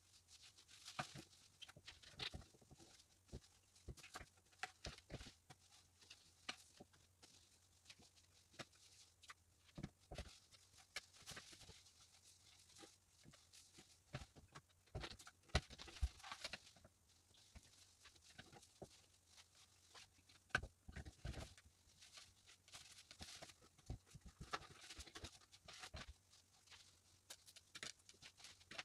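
Faint rustling and crinkling of satin and lace fabric being handled and gathered on a dress form, with scattered soft clicks and taps.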